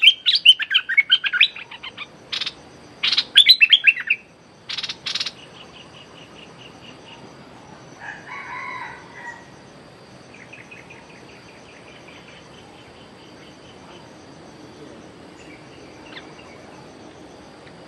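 Caged bulbul giving a rapid, loud chattering 'rik' call for the first few seconds, broken by a few sharp knocks, then fainter chattering bouts further on.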